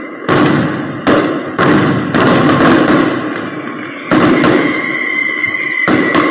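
Firecrackers going off: about six sudden loud bangs spread over several seconds, each followed by a spell of lingering noise, with a steady high tone underneath.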